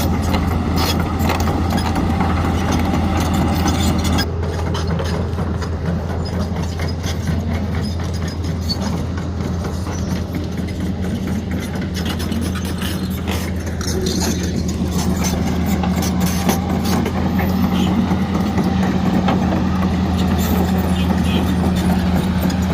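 Hitachi excavator's diesel engine running steadily, with the higher-pitched noise dropping away suddenly about four seconds in and a steady tone coming up in the second half.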